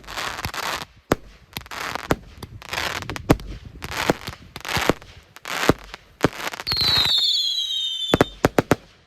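Consumer firework battery (150-shot cake) firing shot after shot: a sharp bang roughly every three-quarters of a second, each followed by a crackling hiss. Near the end comes a falling whistle lasting about a second and a half, then a quick run of four last bangs before it stops.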